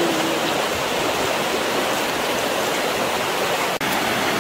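Steady rushing noise with no distinct strokes or taps, briefly dropping out near the end.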